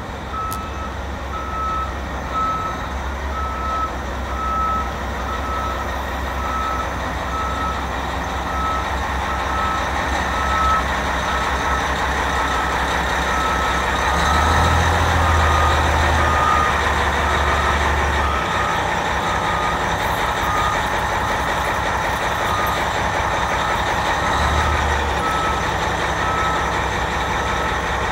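Caterpillar 775E off-highway haul truck's diesel engine running as the truck manoeuvres, with a backup alarm beeping steadily at a little over one beep a second. The engine grows louder for a few seconds midway.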